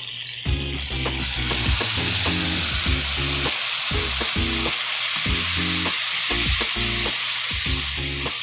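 Food frying in a hot pan: a loud, steady sizzle that swells about a second in and holds. Background music plays underneath.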